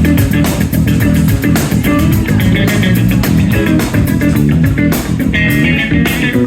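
A band playing at full volume: electric guitar and bass guitar over a drum kit, with drum hits at a steady beat. A run of high guitar notes comes in near the end.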